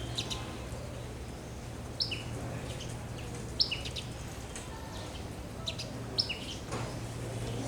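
Sparrows chirping: repeated short two-note chirps, a high falling note and then a lower one, spaced a second or two apart, over a steady low hum.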